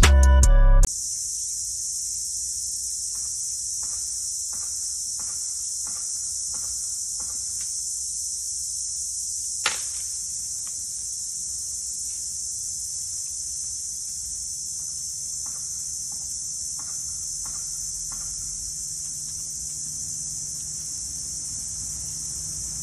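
Steady, high-pitched drone of insects that begins when music cuts off about a second in, with one sharp click about ten seconds in.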